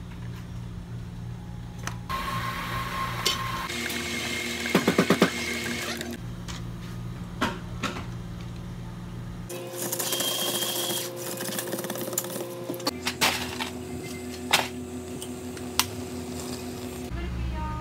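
Iced café mocha being made at a café counter in short cuts: coffee and milk poured into a plastic cup, a quick burst of clicks about five seconds in, and scattered ticks and knocks. A steady hum of café equipment runs underneath and changes pitch at each cut.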